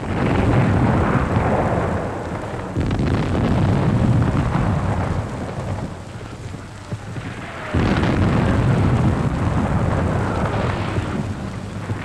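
Three heavy rumbling blasts, each starting suddenly and dying away over a few seconds, the second about three seconds after the first and the third about five seconds later: dubbed battle sound effects for a submarine's torpedo attack.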